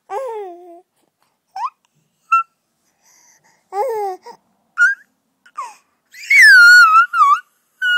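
Baby babbling in short vocal bursts that rise and fall in pitch, then a loud, high-pitched squeal about six seconds in, followed by a shorter one.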